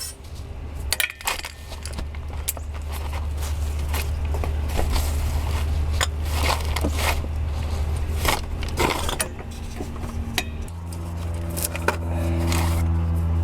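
Metal clinks and scrapes of tools and parts being handled during car repair work, over a steady low hum. About eleven seconds in, a louder steady hum with several tones starts and keeps going.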